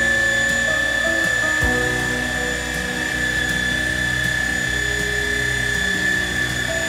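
Right-angle power polisher spinning a buffing pad against a truck's metal fuel tank: a steady high motor whine, over background music.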